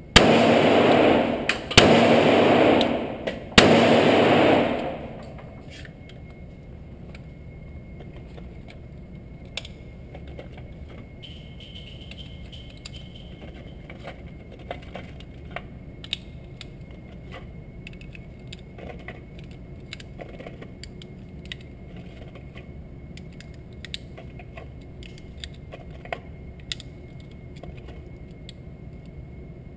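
Three shots from a Glock 30 .45 ACP pistol firing 230-grain hardball, about two seconds apart, each ringing with a long echo off the indoor range's concrete walls. Then small clicks and rattles of .45 cartridges being handled and pressed into the pistol's magazine over a steady background hum.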